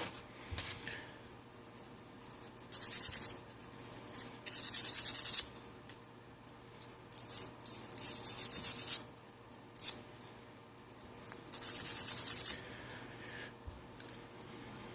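Scraping and rubbing old touchscreen adhesive off a smartphone's plastic frame, in several separate scratchy strokes of about a second each with short pauses between them.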